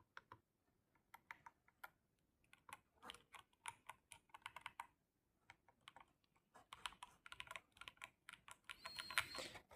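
Keys of a new VGN N75 gasket-mount mechanical keyboard being pressed and typed on, straight out of the box: faint, irregular key clacks with short pauses, a sound called "so creamy".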